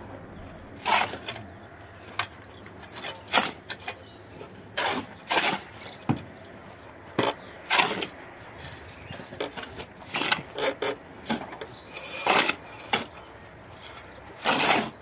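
Two steel shovels scraping into and turning over a pile of cement and gravel on a concrete floor, mixing it by hand. There are short, sharp scrapes and crunches at uneven intervals, about one a second.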